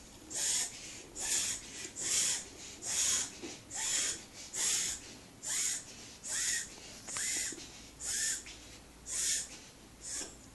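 A pet coughing over and over: about a dozen short, hissing, breathy coughs, roughly one a second, the last one fainter.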